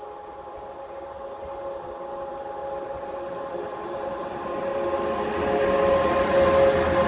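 Electric locomotive hauling a container freight train approaches and grows steadily louder: a steady whine in several tones over the rumble of rolling wheels.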